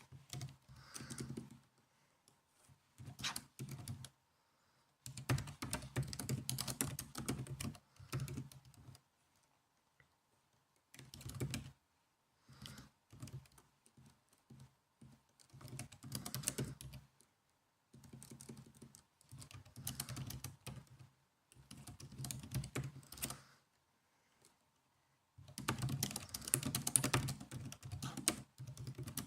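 Typing on a laptop keyboard: quick runs of keystroke clicks in bursts of one to a few seconds, broken by short pauses.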